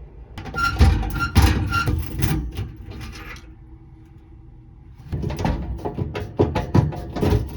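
Music with percussive beats, which pause briefly about halfway through and then pick up again.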